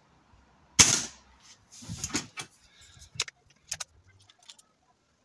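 BSA Lightning SE gas-ram break-barrel air rifle firing once, a sharp crack about a second in. A scatter of smaller clicks and knocks follows as the rifle is broken open to cock it and a pellet is taken from the tin.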